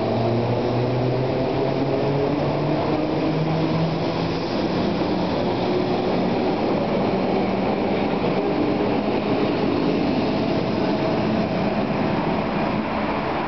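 Budapest HÉV suburban electric multiple-unit train pulling out and gathering speed. The hum of its traction motors rises in pitch over the first four or five seconds, then gives way to a steady rumble as the cars roll past.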